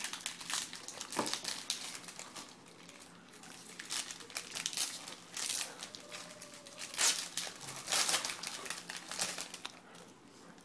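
Plastic trading-card pack wrapper crinkling and being torn open, in short irregular bouts that are loudest about seven to eight seconds in and stop shortly before the end.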